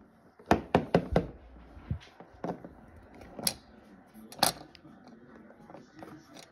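Plastic toy animal figures knocked and set down on a wooden surface. First a quick run of four sharp taps, then single taps about every second.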